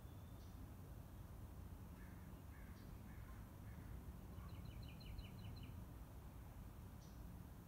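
Crow cawing faintly: about four caws in a row about two seconds in, then a quick run of about eight short, higher notes a little past the middle.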